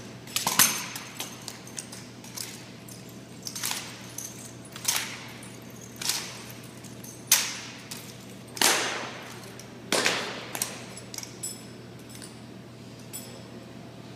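Drill rifles being slapped, caught and handled in unison: a series of sharp clacks about every second and a quarter, each with an echoing tail, thinning to a few light clicks near the end.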